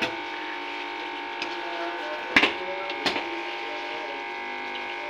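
A wooden spoon stirring a thick potato-and-mutton curry in a nonstick wok as it is fried down, knocking sharply against the pan twice, about two and a half and three seconds in. A steady mechanical hum runs underneath.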